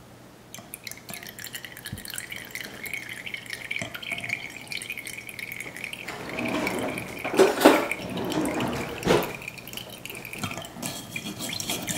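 Tamarind water trickling and dripping through a plastic sieve into a glass measuring cup, with a couple of louder knocks in the second half.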